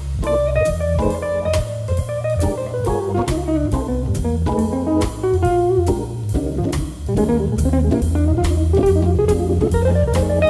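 Background instrumental music: guitar over bass guitar and a drum kit, with a steady beat.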